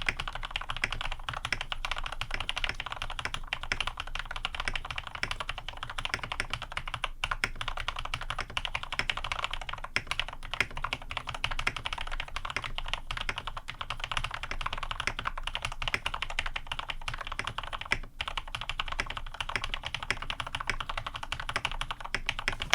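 Fast continuous typing on a custom-tuned mechanical keyboard: lubed Cherry switches (retooled black housings, cream stems, 70 g springs) in an aluminium plate with PBT keycaps, giving a dense stream of soft, deep keystrokes with occasional brief pauses.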